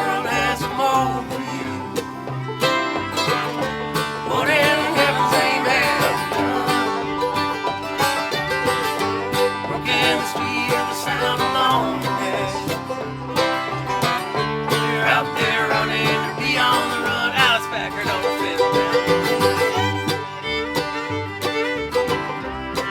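Acoustic string band playing an instrumental passage with no singing, with a steady low pulse under a wavering, sliding lead melody.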